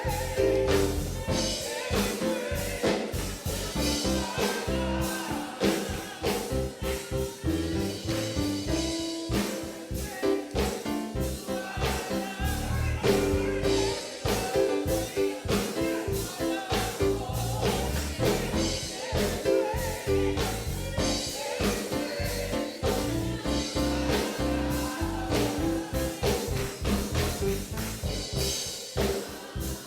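Live gospel music with a drum kit keeping a steady beat, band instruments playing and singing.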